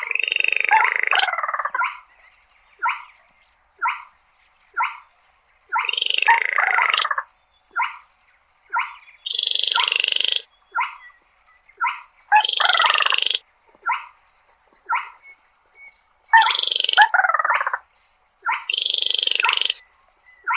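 Baillon's crake calling: short, dry, croaking notes about once a second, alternating every two to three seconds with longer, louder rattling calls that fall in pitch.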